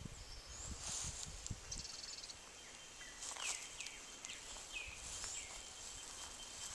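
Countryside ambience of birds calling: a fast, high rattling trill about two seconds in, then several short downward-sliding chirps in the middle, with a thin steady high insect-like tone toward the end and a low rumble at the start.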